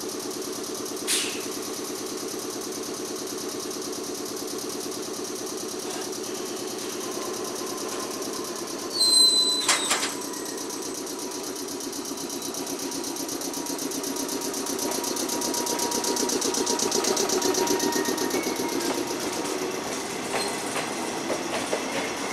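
Yellow JR West electric train standing at the platform with a steady hum, then pulling away, the running noise growing louder as it moves off in the second half. A brief sharp high sound stands out about nine seconds in.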